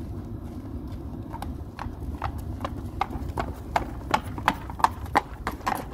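A horse's hooves clip-clopping on concrete as it is trotted up in hand, in an even rhythm of about three strikes a second that begins about a second and a half in and grows louder as the horse comes closer.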